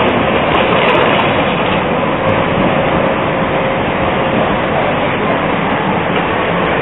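Tram running past on street track and moving away, its noise easing into the steady sound of city road traffic.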